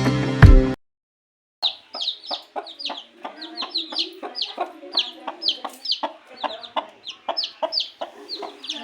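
Music stops under a second in; after a short pause, birds call in a rapid run of short calls, each falling in pitch, several a second.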